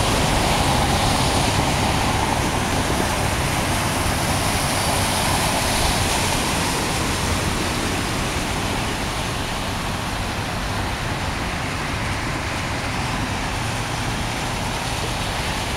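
Steady rushing, splashing noise of cars driving through knee-deep floodwater on a road, a little louder in the first half.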